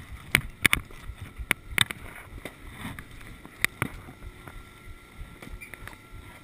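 Skis and ski gear clacking as a skier shuffles through a lift line: several sharp clacks in the first four seconds over a steady low rumble.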